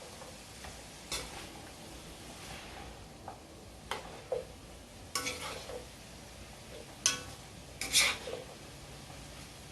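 A spoon stirring sautéing saltfish and vegetables in a pot, scraping and knocking against the pot about half a dozen times over a faint, steady sizzle.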